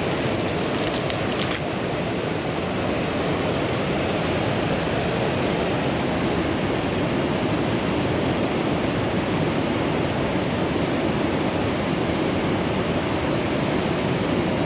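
Waterfall rushing steadily, an even wash of falling water. A few faint crackles sound in the first couple of seconds.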